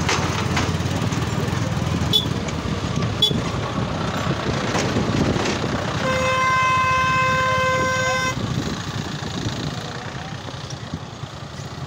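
Motorcycle engine running while riding along a dirt road, with wind and road noise. About six seconds in, a vehicle horn sounds one steady note for a little over two seconds.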